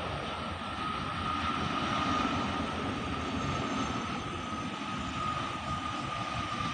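Airbus A330-300's twin jet engines running at approach power as the airliner passes low on final approach, a steady high whine over a low rumble, loudest about two seconds in.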